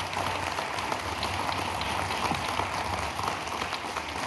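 Audience applauding: a steady, dense clapping of many hands that lasts throughout.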